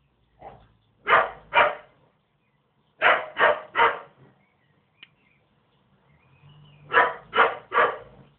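A puppy barking in three quick runs: two barks, then three, then three more.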